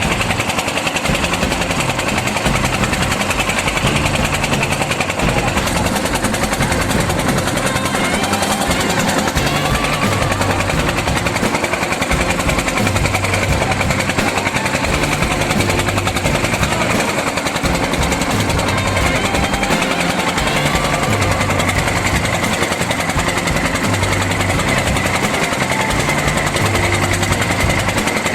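A small engine running steadily with a rapid, even pulsing, loud and close.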